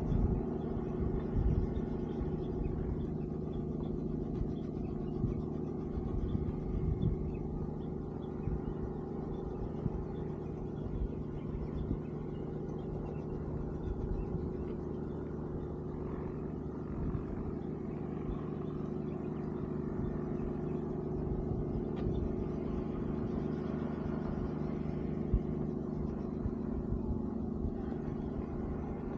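Sightseeing helicopter running, a steady drone with several held tones over a low rumble.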